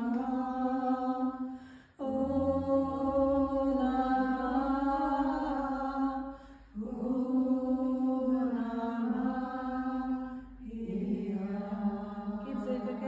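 A woman singing solo and unaccompanied, holding long wordless notes in a chant-like melody. She breaks off briefly twice for breath, and the pitch shifts near the end.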